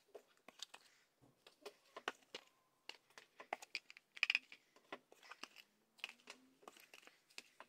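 Hardcover notebooks being handled: a quick string of faint taps, clicks and paper rustles as they are picked up, held up and set down, the loudest about four seconds in.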